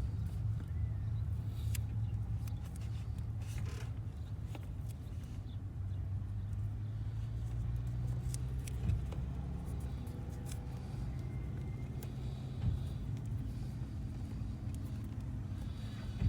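A steady low engine drone, like a vehicle idling, with a few light clicks and taps of handling.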